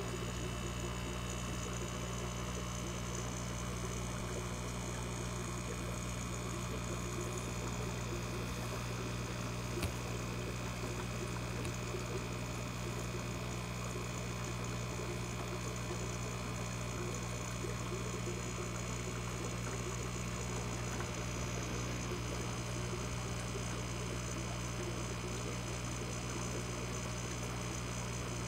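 Steady low electrical hum of running aquarium equipment, with one faint click about ten seconds in.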